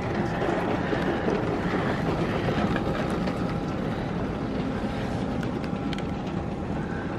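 Tunnel car wash heard from inside the car: a steady rush of water spraying onto the roof and windows as the drying agent is applied, over a low rumble of the wash machinery and a faint steady whine.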